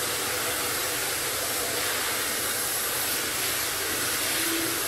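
Chencan CNC router's spindle running at speed over an MDF door panel: a constant hiss with a steady high whine above it.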